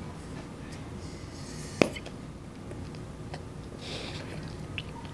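A single sharp click about two seconds in, over low room noise, with a softer rustle near four seconds.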